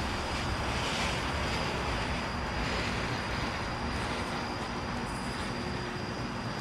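Shogun Jade Flower consumer firework fountain hissing steadily as it sprays sparks.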